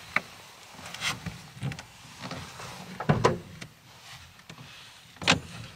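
Someone shifting about inside a pickup's camper shell: clothing rustling, with several knocks and bumps, a heavier thump about three seconds in and a sharp knock near the end.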